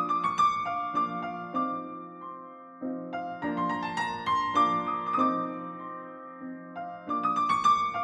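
Background piano music: slow phrases of struck notes that ring and fade, a new phrase starting about three and a half seconds in and again near the end.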